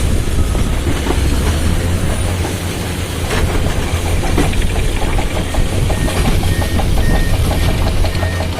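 Diesel engine of a tracked earthmoving machine running under load with steel clanking and a few sharp knocks. From about six seconds in a reversing alarm beeps steadily.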